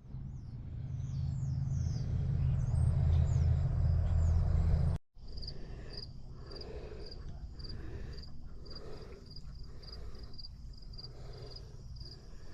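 Outdoor ambience in two cut-together pieces. First a low rumble that grows louder, with a few bird chirps near the start. Then crickets chirping steadily, about two to three chirps a second, over a faint low hum.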